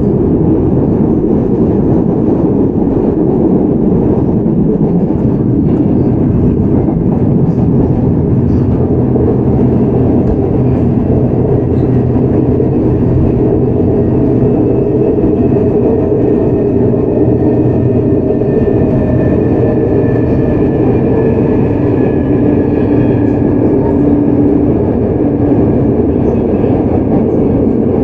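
Seoul Metro 4000 series electric train heard from on board, running with steady loud wheel and track noise. In the second half, faint tones from its GEC Alsthom GTO-VVVF traction inverter and motors come up out of the noise and drift slightly lower.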